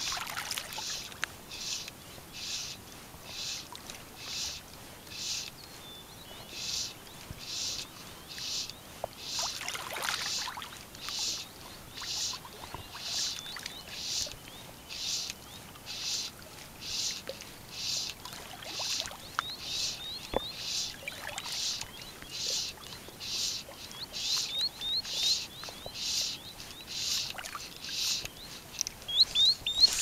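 An insect calling in a steady pulsing rhythm, about three buzzy pulses every two seconds, with a few short high bird chirps over it.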